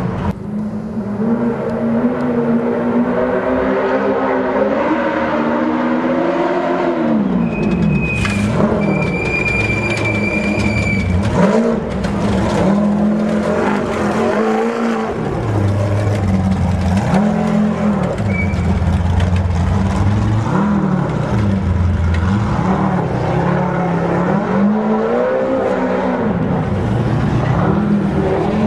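Off-road race buggies' engines revving hard through a rocky wash, the pitch rising and falling again and again as the cars climb and pass one after another. A high steady whistle-like tone sounds for about three seconds, starting some eight seconds in.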